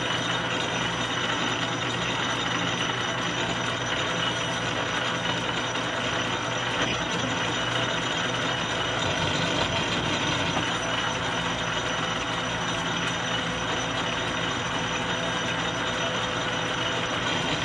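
Metal lathe running steadily under power during single-point thread cutting, its gear train giving an even whir made of many steady tones over a mechanical hiss.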